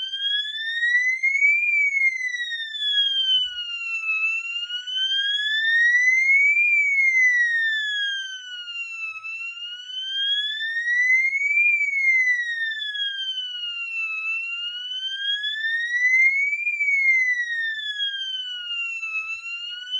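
Fire alarm sounding a wailing siren tone during a system test, its pitch sweeping smoothly up for about two and a half seconds and down for about two and a half seconds, over and over.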